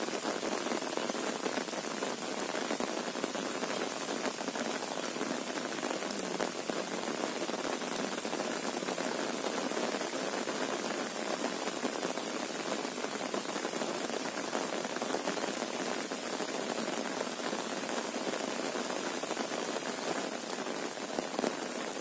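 Heavy rain falling steadily, a dense, even patter of drops with no let-up.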